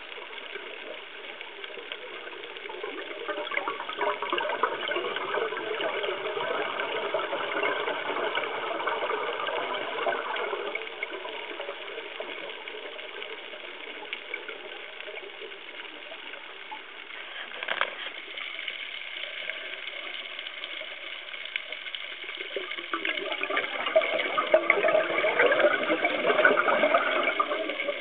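Scuba diver's exhaled air bubbling out of the regulator underwater: two long bubbling rushes, one a few seconds in and one near the end, with quieter breathing hiss and a single click between them.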